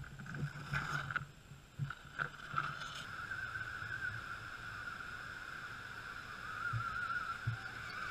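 Radio-controlled rock crawler's electric motor and geared drivetrain whining steadily as it crawls, the pitch wavering slightly with the throttle. A few knocks and scrapes of the tyres and chassis against roots and rock come in the first few seconds.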